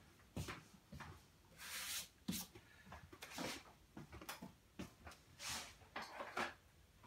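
Things being handled and moved about on a worktable: a string of irregular light knocks and taps, with a few short rustles, in a small room.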